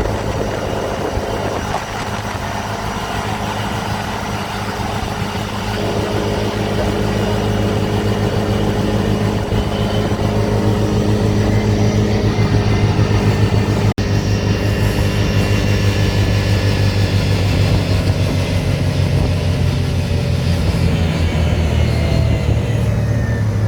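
Dune buggy engine running steadily while driving, growing gradually louder, with a brief break about halfway through.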